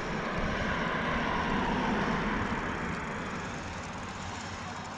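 A car passing on the street: tyre and engine noise swells to a peak about two seconds in, then fades as it goes by, its pitch sliding slightly down.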